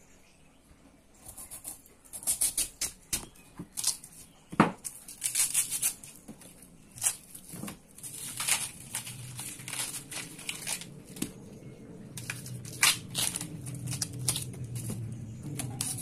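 Outer layers of a tuhau (wild ginger) stalk being peeled and torn off by hand: a run of short, crisp ripping and crackling sounds, the loudest about four and a half seconds in. A low rumble builds through the second half.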